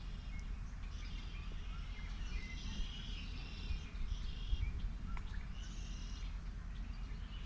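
Songbirds chirping and singing in repeated short phrases over a steady low rumble of outdoor background noise.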